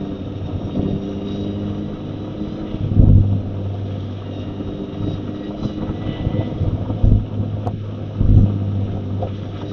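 Mazda MX-5 Roadster's 1.5-litre four-cylinder engine running at a steady speed while cruising, with road and wind noise. A few short low thumps come about three, seven and eight and a half seconds in.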